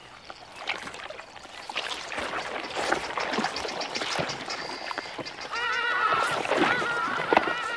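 Crocodile sloshing its head through shallow mud and water, a run of wet splashes and slaps. Over the last couple of seconds a series of short, high, repeated animal calls joins in.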